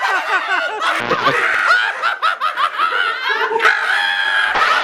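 A group of people laughing loudly together, several voices overlapping in quick, shrill bursts of cackling.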